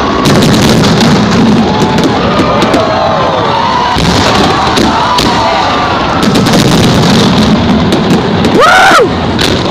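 Fireworks display: repeated bangs and crackling of shells bursting, over a cheering crowd with music playing. About nine seconds in, a loud rising-then-falling whoop stands out above the rest.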